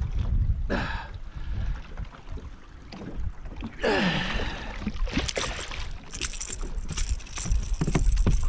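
Wind rumbling on the microphone. About four seconds in, a splash as a hooked queenfish is grabbed from the water, then a run of sharp knocks and rattles as the fish and lure come into the aluminium boat.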